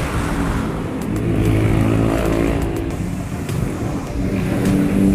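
Passing road traffic: motor vehicle engines going by and accelerating, one engine's pitch climbing near the end.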